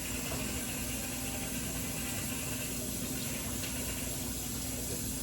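Steady hiss with a low, constant hum underneath.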